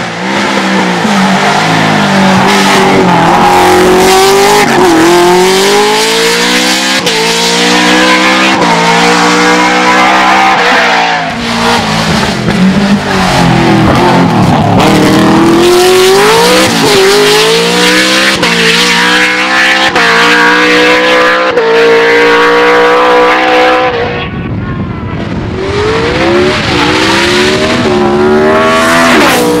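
Lotus LT5 5.7-litre 32-valve V8 of an Opel Kadett C hillclimb racer at full throttle, loud. Its note repeatedly rises through the revs and drops at each gear change, over several separate passes.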